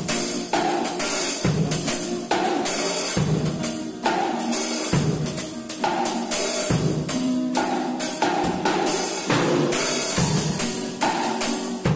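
Drum kit played to a steady beat, bass drum, snare and cymbals, with acoustic guitar chords underneath.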